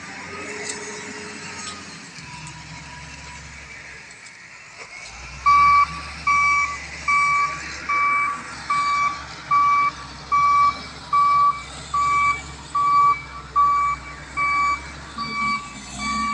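Wheel loader's reversing alarm beeping steadily, a bit over one beep per second, over the low rumble of its diesel engine. The beeping starts about five seconds in, as the machine backs up.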